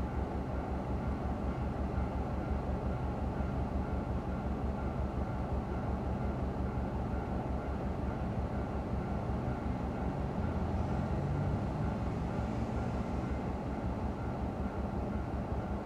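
Steady low rumble heard from inside a car cabin while waiting at a railway level crossing, with a train going past about ten to thirteen seconds in, its passing swelling the rumble and adding a faint hiss.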